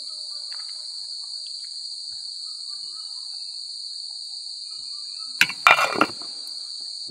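A metal lid set down on a metal cooking pot with a few quick clanks, about five and a half seconds in. Under it runs a steady high-pitched drone of insects.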